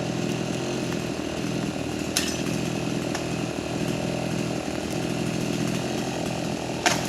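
Small petrol engine running steadily at an even pitch, with a sharp click about two seconds in and a louder one near the end.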